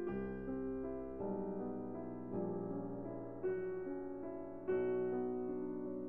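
Background piano music, slow, with a new chord struck roughly every second.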